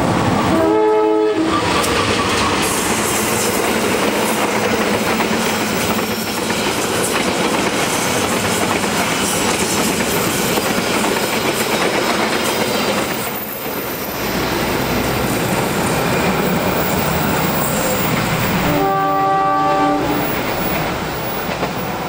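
Indonesian diesel locomotive sounding its horn briefly about a second in, then the locomotive and its passenger carriages running close past with steady wheel-and-rail noise. The horn sounds again, for a little longer, near the end.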